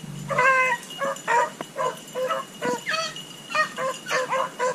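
Beagles barking on a rabbit's scent trail: one longer bay, then a quick run of short chop barks, about three a second.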